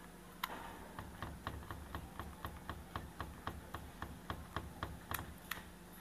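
Small, sharp plastic clicks, about four a second, as a screwdriver works the gear and pin of an LG Inverter washing machine's lid-lock switch. The gear had slipped out of place, the fault behind the machine's dL lid-lock error.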